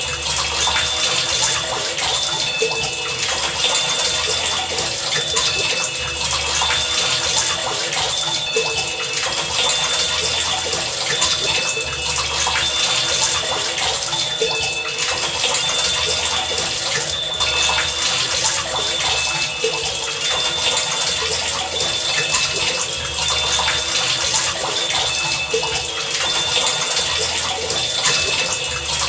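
Heavy rain falling steadily, a dense even hiss, with short high-pitched tones recurring every second or two over it.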